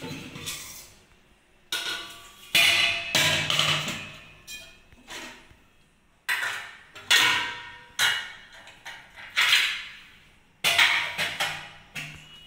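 An aluminium idli steamer pot, its lid and its idli plates clanking as they are taken off a shelf, opened and set down on a stone counter. The result is a series of about ten metal knocks, each with a short ring.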